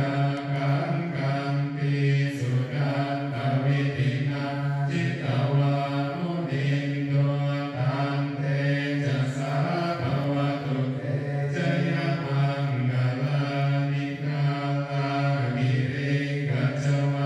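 Theravada Buddhist chanting: low voices intoning together on a nearly level pitch, in an even run of syllables.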